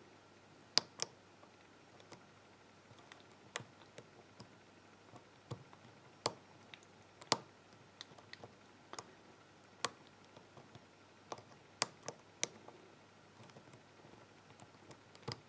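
Irregular sharp clicks and ticks, one every half second to a second or so, of a Sparrows deep hook pick working the pins inside a pin-tumbler lock cylinder.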